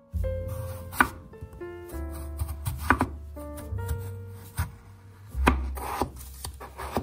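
Chef's knife slicing through peeled raw potatoes and knocking on a plastic cutting board, a sharp knock with each cut every second or two, over background music with a steady bass line.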